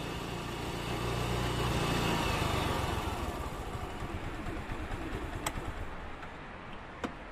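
Motor scooter engine running as the scooter rides up and slows, its sound dying away over the next few seconds. Two small clicks come near the end.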